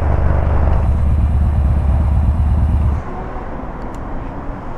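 Yamaha Bolt's V-twin engine running with a steady low rumble, then the sound drops sharply about three seconds in to a quieter rumble, with a couple of faint clicks near four seconds.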